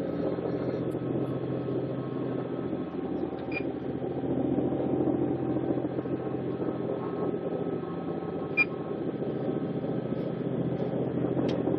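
Steady drone of a pilot boat's twin Caterpillar diesel engines running under way, heard inside the enclosed wheelhouse. Two short high blips sound over it, about a third and about two thirds of the way through.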